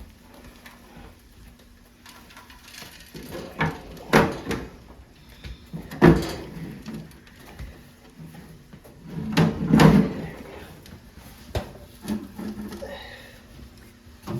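Metal stovepipe sections being worked loose and pulled apart, with bursts of scraping and clanking, the loudest about 4, 6 and 10 seconds in, and a sharp knock near 11 seconds.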